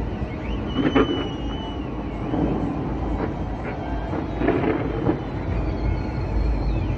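Distant fireworks: a continuous rumble of booms, with sharper bangs about a second in and again around the middle.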